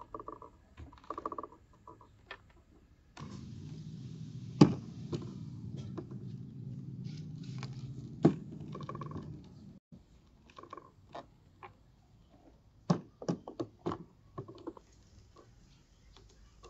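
Kitchen handling sounds: a series of light knocks and clinks, a few sharp and louder, with short ringing clinks near the start. A low steady hum cuts in about three seconds in and stops abruptly near ten seconds.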